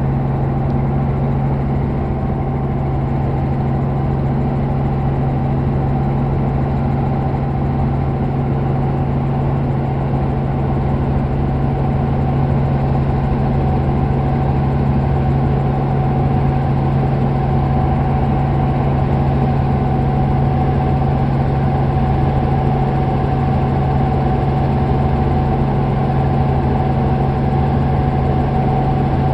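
Robinson helicopter in flight, heard inside the cabin: a steady drone of engine and main rotor, with a deep hum and a higher whine that hold one pitch.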